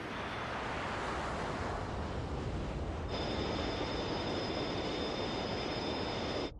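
Animated aircraft engine sound effect: a steady rushing roar that swells over the first seconds, joined about three seconds in by two high, steady whining tones, then cut off abruptly near the end.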